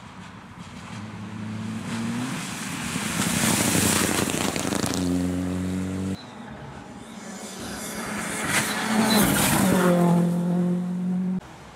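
Two rally cars passing at full throttle, one after the other: a Mitsubishi Lancer Evolution on a gravel stage, then an R5 rally car on tarmac. Each engine climbs in pitch as the car accelerates toward the microphone. The first cuts off suddenly about six seconds in, and the second drops in pitch as it goes past, about three seconds later.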